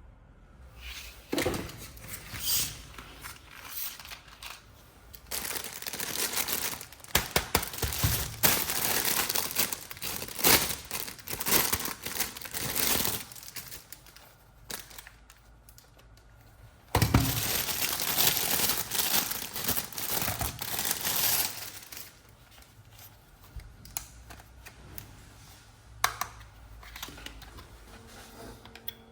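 Toy packaging being crinkled and torn open by hand, in two longer loud stretches with quieter handling and scattered clicks between.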